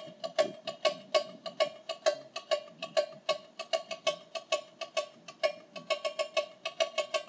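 Tamborim struck with a beater in a quick, steady pattern of sharp, ringing strikes, several a second at one pitch, played in the manner of the maracatu cowbell.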